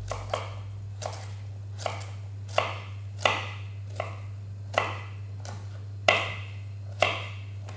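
Chef's knife chopping a peeled carrot on a wooden chopping board: about ten separate cuts, a little more than one a second, each a short knock of the blade through the carrot onto the board.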